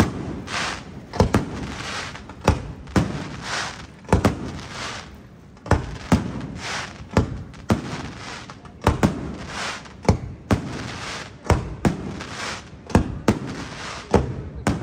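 Aerial firework shells bursting in a steady, uneven series of sharp bangs, roughly one to two a second, each followed by a short echo.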